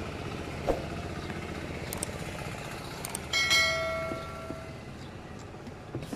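Bell chime sound effect of a YouTube subscribe-button animation: one bright ding that rings and fades over about a second and a half, after a few light clicks.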